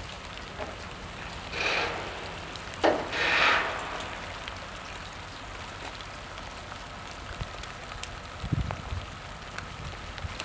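A steady hiss like falling rain, with two brief louder bursts of noise about two and three seconds in and a few soft low thumps near the end.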